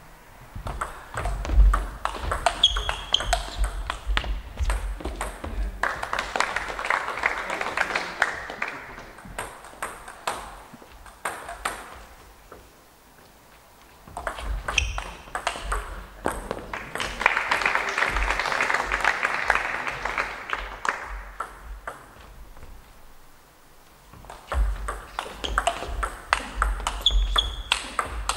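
Table tennis rallies: the ball clicking off the rackets and bouncing on the table in quick back-and-forth exchanges, in three runs separated by short pauses. Twice between exchanges there is a longer stretch of denser crowd noise.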